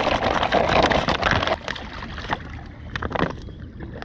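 Water sloshing and splashing, loudest for the first second and a half and then quieter, with a few sharp clicks after that.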